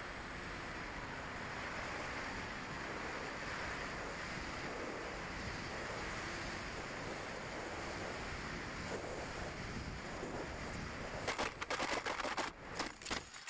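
Steady rush of air over the Mini Talon's onboard camera as the plane glides low over a road, with a thin high tone coming and going. Near the end a run of sharp, irregular crackles and scrapes as the plane touches down and skids along the gravel road.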